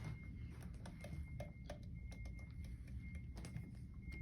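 Rubber grip being worked onto an e-bike's right handlebar: faint scattered small clicks and handling noise over a low hum.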